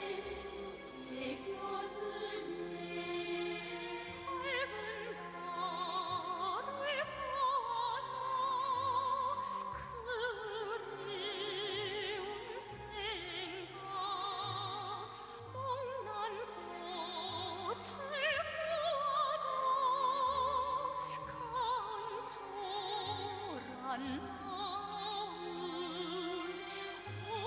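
A solo voice singing a slow melody in a full, operatic style with wide vibrato, over an orchestral accompaniment.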